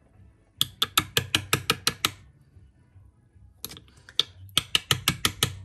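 An open raw mussel being tapped rapidly against a hard surface in two runs of sharp clicks, about seven a second, with a pause between. This is the freshness test: a live mussel closes its shell when knocked, and one that stays open should be thrown out.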